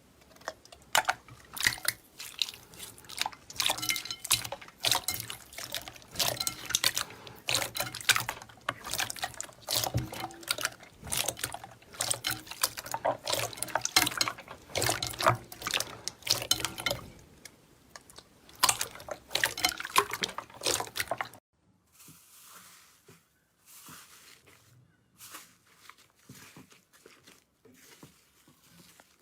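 Slime being squeezed and poked by hand, giving a dense run of sticky, wet popping and clicking. About three-quarters of the way through it switches abruptly to softer, sparser squishing.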